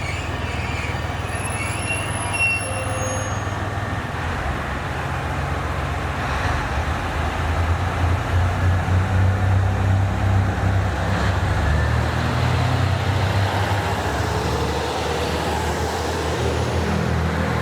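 A train moving through a station: a steady low hum with wheel-on-rail noise. It grows louder about halfway through, pulsing rapidly, then eases a little.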